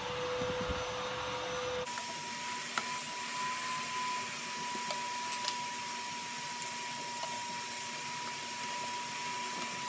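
A steady hiss with a constant high whine, which jumps up in pitch about two seconds in. A few faint clicks come from a hand screwdriver backing out the Phillips screws inside a plastic centre console.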